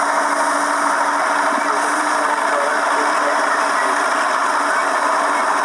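Steady mechanical running noise with a constant low hum, unchanging throughout.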